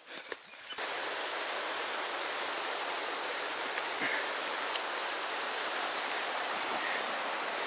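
Steady rushing of a river's white-water rapids, cutting in suddenly under a second in, after a moment of faint rustling and small clicks.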